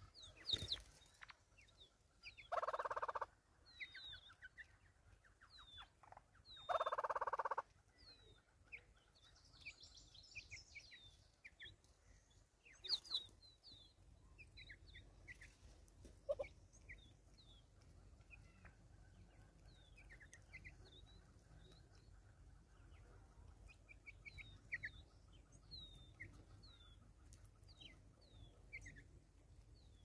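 Wild birds calling: many short, high chirps from small birds throughout, with two loud, harsh calls of under a second each, about three and seven seconds in. A single sharp knock comes about thirteen seconds in.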